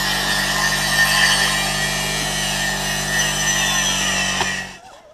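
A small motor running steadily at a constant pitch, loud and dense like a power tool, cutting off abruptly near the end.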